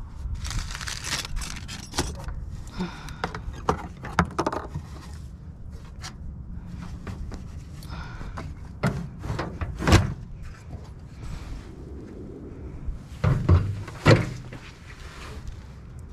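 Rattling and knocking of curbside junk being handled and shifted, with a heavy thump about ten seconds in and two more a few seconds later.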